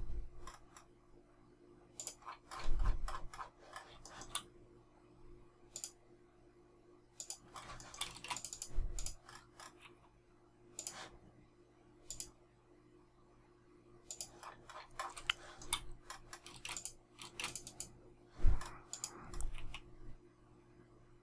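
Computer keyboard and mouse clicking in irregular bursts of quick taps, with short pauses between them, over a faint steady hum.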